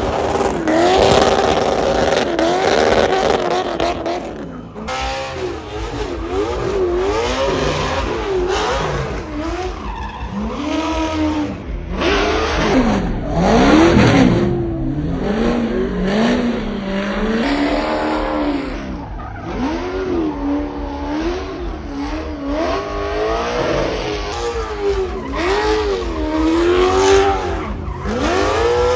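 Car engine revving hard, its pitch swinging up and down again and again, with tyres squealing.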